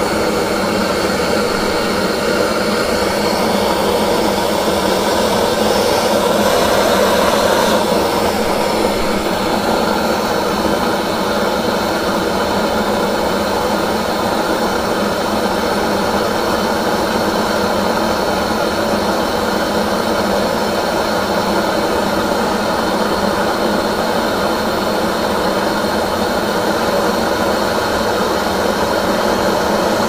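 Hand-held gas torch burning steadily with a loud, even rushing hiss as its flame heats a brass combination padlock, a little louder about five to eight seconds in.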